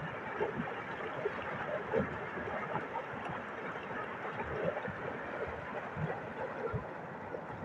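Flash-flood water rushing down a mountain stream: a steady, dense rush with a few short low thuds scattered through it.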